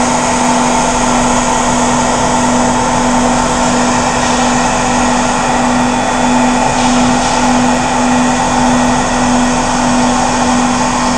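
Cleanvac industrial high-vacuum machine with an induction motor running steadily: an even rushing of air over a strong, constant hum.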